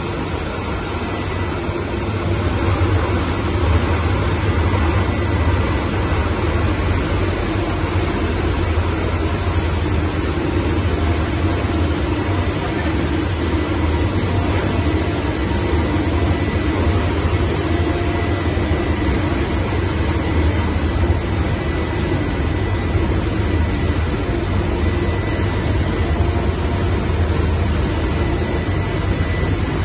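Freshly overhauled diesel fire-pump engine running steadily under test, with a faint steady high whine over the engine note. It gets louder about two seconds in.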